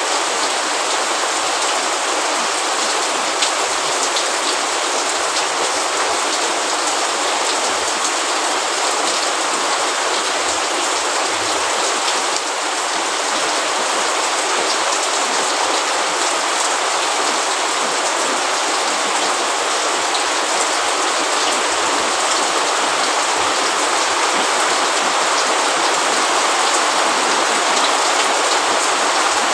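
Steady rain falling, a dense even hiss with fine ticks of individual drops hitting a hard surface.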